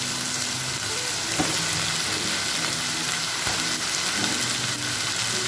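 Sliced onions and chopped tomato frying in hot oil in a kadai, a steady sizzle as a spatula stirs through them, with a couple of light knocks.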